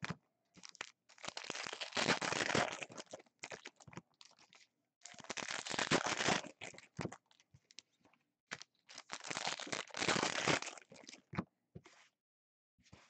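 Foil wrappers of 2016 Contenders football card packs being torn open and crumpled by hand, in three long bouts of crinkling with short rustles and taps between.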